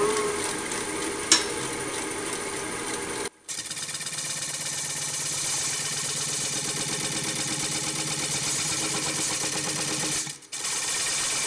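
Wood lathe running with a large jatoba (Brazilian cherry) blank spinning, while a bowl gouge cuts its edge and throws off shavings: a steady whir with a fine buzz. The sound cuts out briefly twice, about three and ten seconds in.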